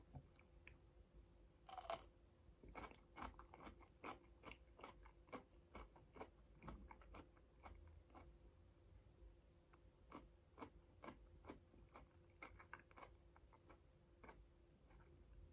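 A person biting into and chewing a pod of okra: a louder crunching bite about two seconds in, then a run of quiet, crisp chewing clicks.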